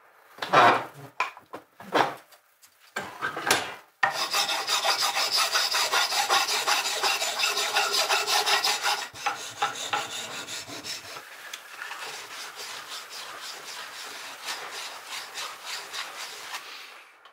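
Hand file rasping across a black threaded pipe fitting clamped in a vise: a few separate strokes, then a long run of fast, continuous filing that grows quieter over the last several seconds.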